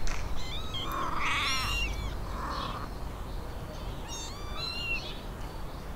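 Kittens mewing in a string of short, high-pitched calls.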